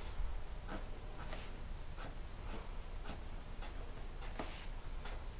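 Felt-tip permanent marker drawing short strokes on paper, about two strokes a second.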